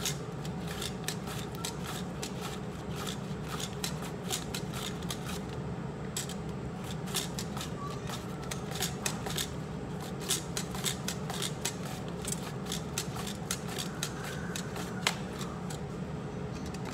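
A cucumber being pushed across a handheld plastic mandoline slicer: quick, crisp slicing strokes as each slice is shaved off, repeated in fast irregular runs.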